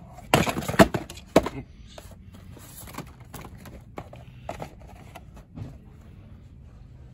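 Cardboard toy box being handled close to the microphone and moved on a metal pegboard hook: a burst of scraping and knocking about half a second in, then scattered lighter clicks.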